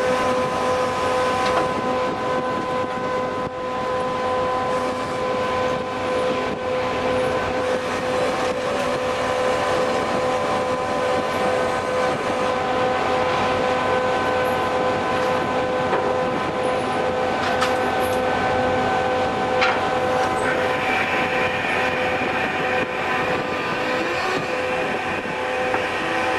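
Purse seiner's deck machinery running steadily as the seine net is hauled through the power block: a constant whine of several steady tones over a rushing noise. A higher whine joins about twenty seconds in, shortly after a couple of sharp knocks.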